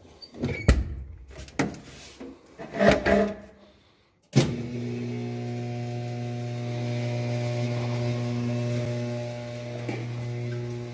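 A few knocks and handling clatter, then about four seconds in an electric workshop motor switches on and runs with a steady hum, as from a bench polisher or grinder used on a handmade brass ring.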